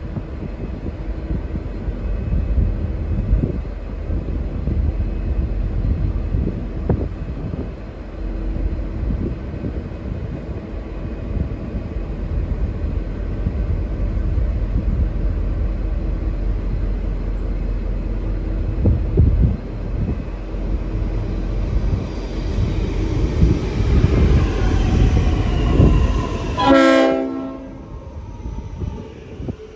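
V/Line N-class diesel locomotive N453 rumbling steadily with its train, getting louder over the second half. Near the end comes a short blast of about a second on its Leslie RS5T horn, and then the sound drops away.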